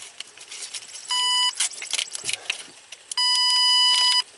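Power Probe ECT2000 short/open locator beeping with a steady electronic tone, once briefly about a second in and again for about a second near the end, signalling that it is picking up the wiring fault as the harness is flexed. Between the beeps come the rustle and small clicks of the wiring harness being handled.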